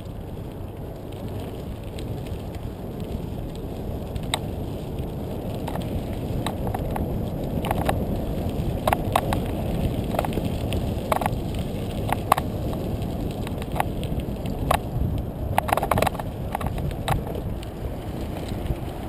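Mountain bike rolling over loose, rocky gravel: a steady low rumble of tyres and riding noise, broken by scattered sharp clicks and rattles from stones and the bike, with a bunch of them near the end.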